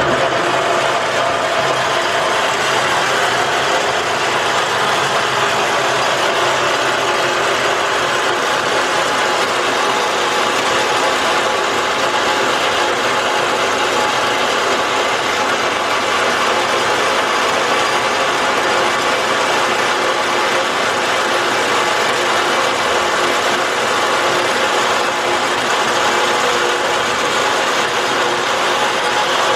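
An old machine-shop machine tool runs steadily for the whole stretch, with a whir of gears and several steady tones over a mechanical hiss, as the custom steel center pin is machined down.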